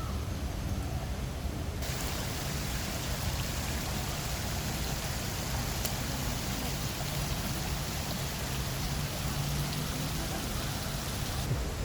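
Steady hiss of falling water, starting suddenly about two seconds in and stopping suddenly near the end, over a low rumble.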